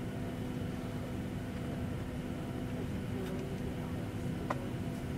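Commercial airliner cabin during deboarding: a steady low rumble with a constant hum, broken by a couple of short clicks, the clearest about four and a half seconds in.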